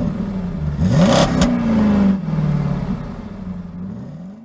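Vehicle engine revving several times, pitch climbing and settling, with a brief whoosh and a sharp click about a second in; it fades out near the end.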